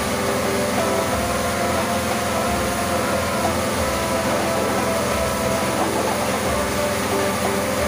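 Pressure washer running, its pump motor droning steadily with a low throb that comes and goes, while the water jet hisses against a motorcycle's bodywork.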